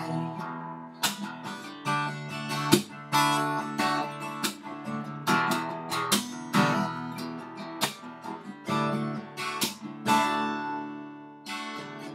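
Acoustic guitar strummed on its own, no voice, each strummed chord ringing on between strokes. The strokes thin out near the end, one chord ringing out and fading.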